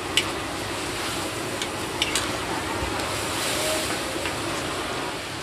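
Chives and sliced meat sizzling in a large aluminium wok as metal spatulas toss them, with a few sharp clinks of metal on the pan. The hiss swells briefly a little past the middle.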